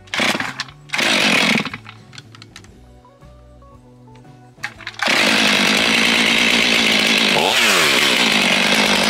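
Stihl two-stroke chainsaw being pull-started: two short pulls on the starter cord, then about five seconds in the engine catches and runs steadily and loudly, its pitch dipping and recovering once a couple of seconds later.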